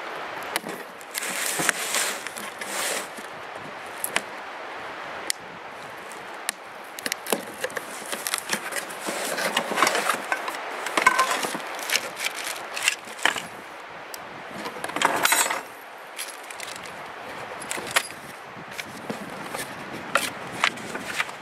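Parts of a Weber Smokey Joe grill being handled for assembly: scattered clicks and knocks, with a few longer stretches of rustling or scraping.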